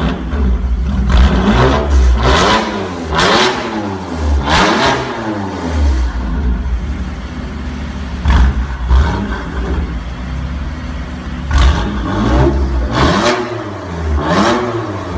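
BMW F82 M4's twin-turbo inline-six through an Armytrix valvetronic exhaust, blipped repeatedly in quick free revs, each rising sharply and dropping back, with the engine idling between them. Revs come in bursts, with a longer idle gap about halfway through.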